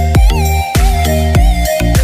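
Electronic dance music: a steady, heavy beat of deep bass hits, each dropping in pitch, under a held synth melody.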